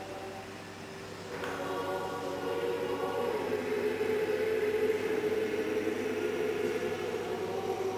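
Orthodox church choir chanting in several voices on long, held notes, swelling louder about a second and a half in.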